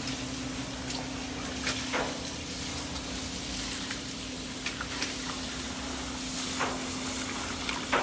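Steady hissing rush of water running into a boiler through its piping, over a low steady hum, with a few light clicks.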